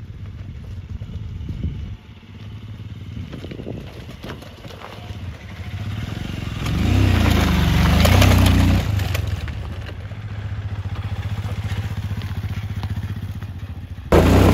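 Royal Enfield Himalayan motorcycle's single-cylinder engine running under way. It revs up and back down about halfway through, and the sound jumps suddenly louder near the end.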